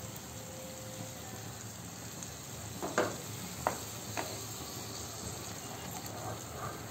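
Onion-tomato paste sizzling in hot oil in a kadhai as it is stirred with a wooden spatula, which knocks against the pan three times about three to four seconds in.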